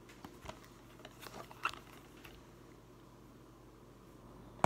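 Light clicks and crinkles of a shrink-wrapped plastic DVD case being handled and turned over in the hands, mostly in the first couple of seconds, with one sharper click at the very end.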